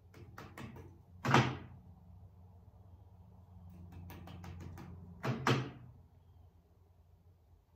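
Table saw rip fence being adjusted by hand: a few light clicks, a loud metal clunk about a second in, a cluster of clicks around four seconds, then two more loud clunks just after five seconds. A low steady hum runs underneath.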